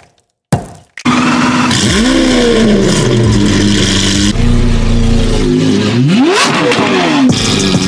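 A Lamborghini Aventador SV's V12 with a Gintani F1 exhaust revving hard, its pitch rising and falling in repeated blips. It starts about a second in, after a short sharp hit that dies away quickly.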